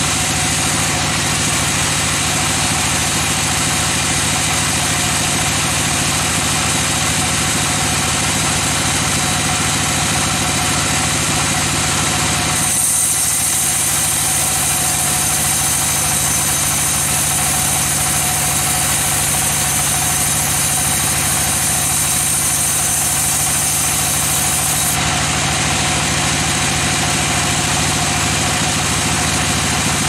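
Band sawmill running steadily, its blade cutting lengthwise through a teak log over a constant machine hum. A thin high whine comes up about halfway through and drops away again a few seconds before the end.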